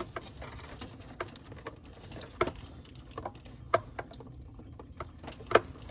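Scattered small clicks and scrapes of a screwdriver tip working against the plastic release tab of a car's radiator cooling-fan electrical connector, about seven irregular ticks over a few seconds.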